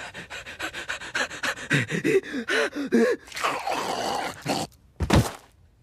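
A man's rapid, excited panting and gasping for about three seconds, with small squeaky voiced catches in the breaths, then a longer drawn-out gasp. A short loud sound comes about five seconds in.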